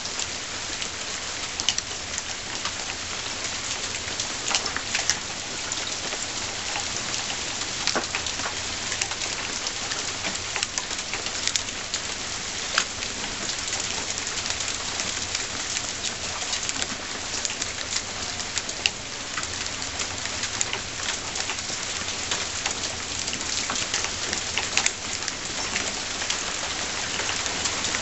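Hail and rain falling: a steady hiss of drops with scattered sharp clicks of hailstones striking the roof, gutter and leaves.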